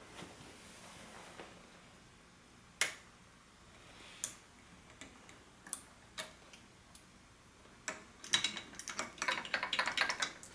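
Small metal clicks of pliers and a wrist pin retaining clip being worked into the piston of a 66/80cc bicycle engine: single sharp clicks every second or so, then a quick run of clicks over the last couple of seconds.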